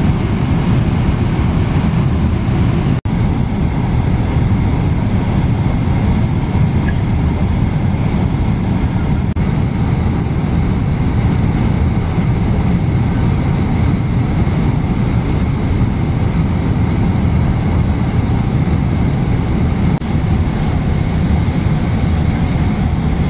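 Steady cabin noise of a jet airliner in cruise flight: an even low rumble of engines and rushing air, dipping briefly about three seconds in.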